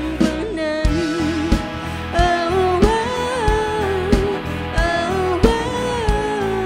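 Live band playing a pop-rock song: a drum kit keeps a steady beat under bass and electric guitar, with a wavering, bending lead melody line on top.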